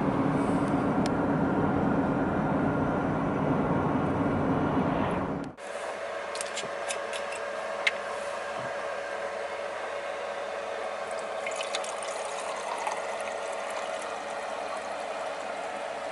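Steady road and engine rumble from inside a moving campervan. About five seconds in it cuts off abruptly and gives way to a quieter, steady rushing hiss with a few faint clicks.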